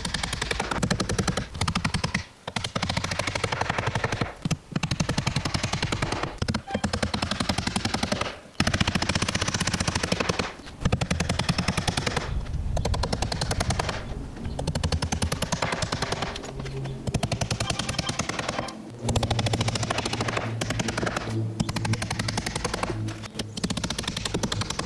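Hammer driving nails into wooden wall framing, a fast, continuous run of blows broken by a few short pauses.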